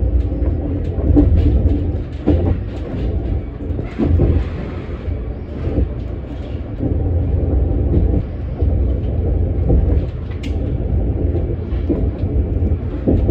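Moving Metra commuter train car heard from inside: a steady low rumble of the wheels on the track, with scattered short knocks and clicks.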